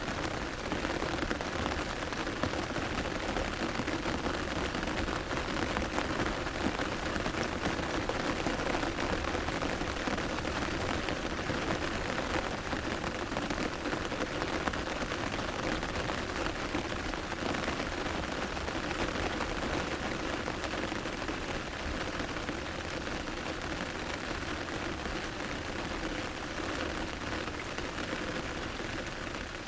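Medium rain pattering steadily on an umbrella canopy: a dense, even patter of many small drop impacts.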